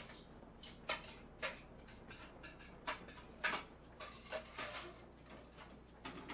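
Dishes and cutlery clinking and clattering while being washed and stacked by hand: a string of sharp, irregular knocks, several within a few seconds.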